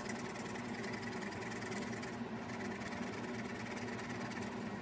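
Pencil shading fast back and forth with heavy pressure on paper laid over a lino block, a steady dry scratching, to transfer a pencil sketch onto the block. A faint steady hum lies underneath.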